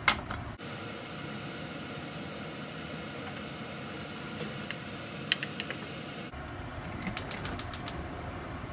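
Gas stove burner's spark igniter clicking rapidly, a run of about seven or eight clicks within a second near the end, as the burner is relit. Before that, faint steady hiss with a couple of single clicks.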